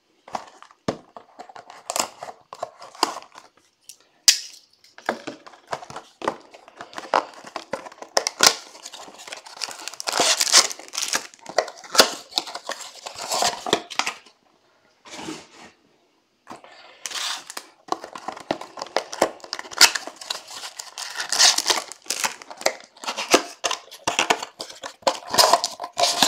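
Trading-card box and its foil-wrapped packs being torn open and handled, crinkling and tearing in irregular bursts with small clicks, and a pause of a few seconds a little past the middle.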